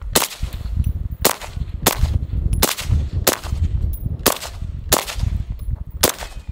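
Suppressed IWI X95 Tavor rifle in 5.56 with an OSS HX-QD 556 Ti suppressor, fired eight times at a slow, uneven pace of about one shot a second.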